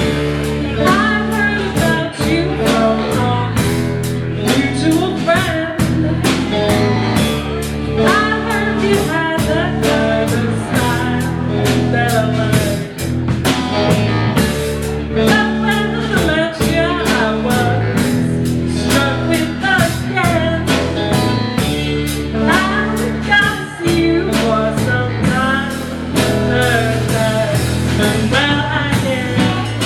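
Live blues-rock band playing with a singer, electric guitar and drum kit keeping a steady beat.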